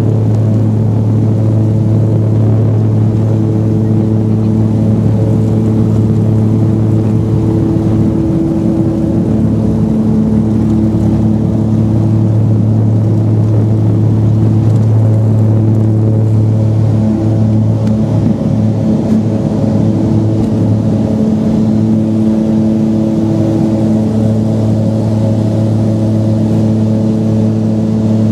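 A propeller aircraft's engine running steadily at takeoff power, heard from inside the cabin, as the plane rolls down the runway and lifts off.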